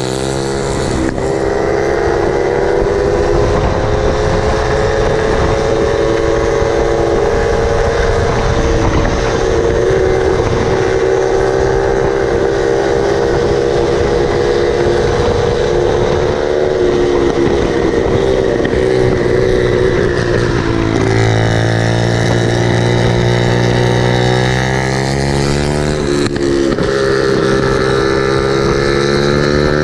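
50cc two-stroke Yamaha moped engine running at a steady high pitch, then easing off and revving back up twice near the end.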